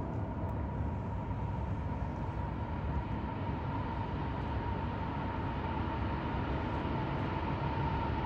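Distant diesel freight locomotives approaching on a trestle: a steady low rumble with a thin, steady high whine, growing slightly louder as the train nears.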